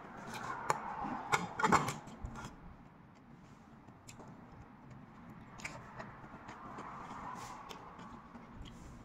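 Balut eggshell being cracked and peeled by hand: a cluster of crisp crackles and clicks in the first two seconds, then sparse faint ticks as small shell pieces come off.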